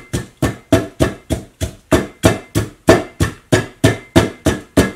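Wooden pestle pounding chilies in a clay mortar, steady strikes about four a second, each with a short ringing knock from the clay bowl.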